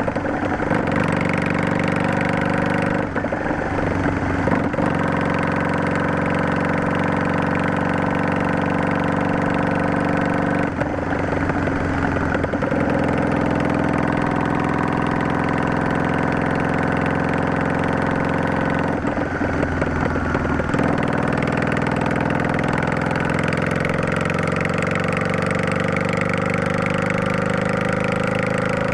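Yamaha Drag Star 400's air-cooled V-twin running on the road through an aftermarket Garage T&F Vent Muffler Type2 with a Luxury inner silencer fitted. The exhaust note drops away briefly three times, about 3, 11 and 19 seconds in, and climbs slowly in pitch after each break.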